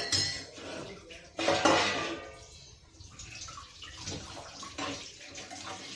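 Liquid being poured and splashing into a metal cooking pot, with clinks of pots and utensils. The loudest surge comes about a second and a half in, then it settles into an uneven pouring hiss.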